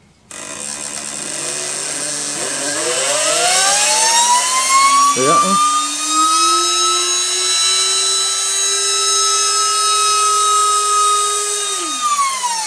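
Miniature belt-driven Tesla turbine-and-pump rig, powered by a 12-volt brushed DC motor, starting up with a whine that rises in pitch over about six seconds. It then holds a steady high whine and falls in pitch near the end as the rotors wind down.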